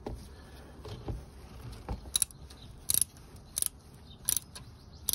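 Socket ratchet undoing a motorcycle's oil drain bolt by hand, its pawl clicking in a short burst on each back-swing: five bursts, about one every three quarters of a second, starting about two seconds in.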